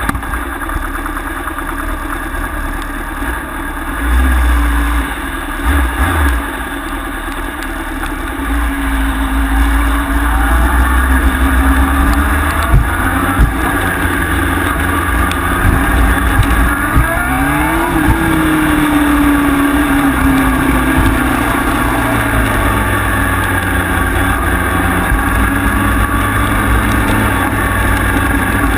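Honda CBR sport bike's inline-four engine running, its pitch wandering up and down with the throttle and rising sharply about two-thirds of the way in, over a heavy low rumble of wind on the microphone.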